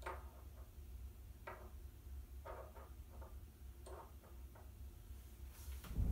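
Small plastic toy figures tapping and clicking on a wooden tabletop as they are picked up and set down: faint, short, irregular taps.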